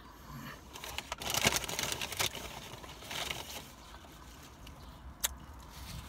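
A person chewing a mouthful of chicken sandwich with bun and salad: irregular wet smacks and crackles, loudest a second or two in and again around three seconds. A single sharp click about five seconds in.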